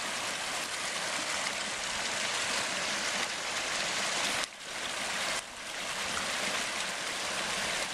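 Creek water rushing steadily, with a short drop in level about halfway through.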